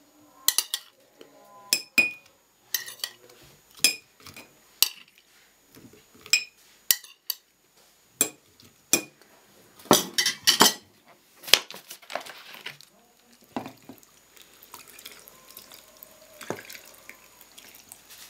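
Metal spoon and knife clinking against a glass jar and a ceramic plate as pieces of green pepper are pushed into the jar. Sharp single clinks come about once a second, with a dense clatter about ten seconds in, then fainter handling toward the end.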